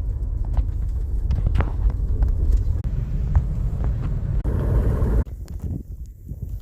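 Strong blizzard wind buffeting the microphone: a loud, uneven low rumble with scattered clicks that drops off sharply about five seconds in.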